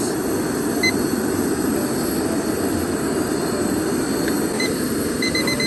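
Steady rushing of a Coleman two-burner camp stove's flame under a pot of noodles at the boil. A digital kitchen timer beeps once about a second in, then sounds its alarm in quick groups of four beeps near the end, signalling that the boiling time is up.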